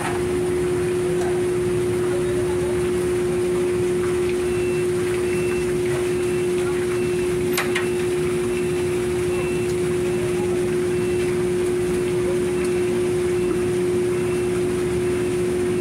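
Steady drone of running machinery with a constant mid-pitched hum, and a single sharp knock about halfway through.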